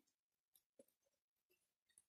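Near silence, with only a few faint, scattered ticks.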